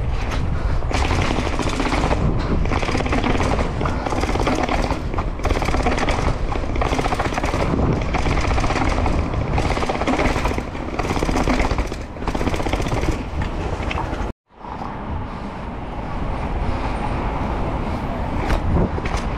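Mountain bike rattling and clattering at speed over rough urban ground, a fast run of sharp knocks over a constant rush of wind on the microphone. About two-thirds through the sound cuts out abruptly, then returns as a steadier rush with fewer knocks.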